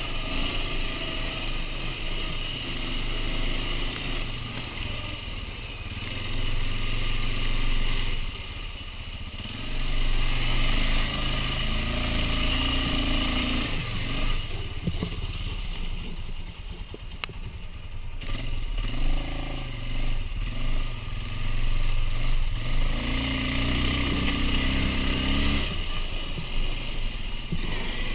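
Quad bike (ATV) engine running under way, repeatedly revving up hard and easing back. The loudest pulls come about a third of the way in and again near the end, with a longer quieter stretch of lower revs in the middle.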